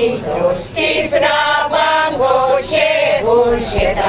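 Women's choir singing a Hungarian folk song, several women's voices together.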